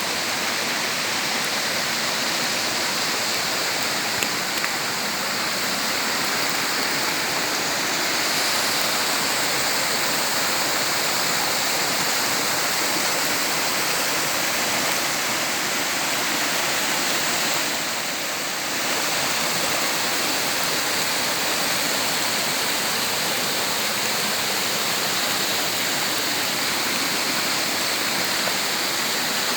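Waterfall rushing steadily: a constant, dense hiss of falling water that dips slightly for a moment about 18 seconds in.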